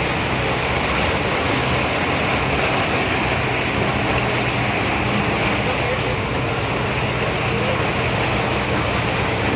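A bus driving through deep floodwater: a steady rush and splash of water churned up beside the wheels, with a low engine hum beneath.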